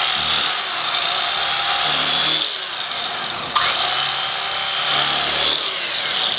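Electric carving knife running steadily, its reciprocating blades buzzing as they saw a slice off a smoked brisket, with a brief dip in the motor about halfway through.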